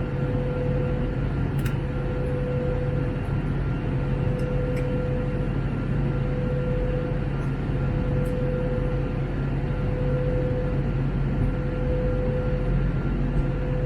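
Steady cabin noise of an Airbus A321 in flight: engine and airflow drone with a steady hum running over it, and a few faint ticks.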